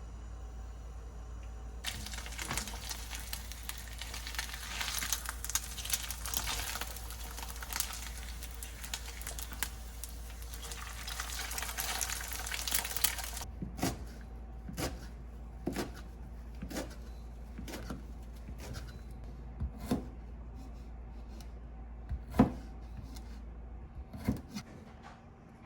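A dense crackling hiss that cuts off suddenly about thirteen seconds in, followed by a series of separate sharp clicks and knocks, over a steady low hum.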